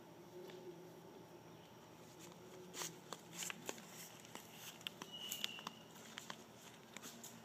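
Irregular crunching footsteps on dry leaves and forest-floor litter, starting about two and a half seconds in.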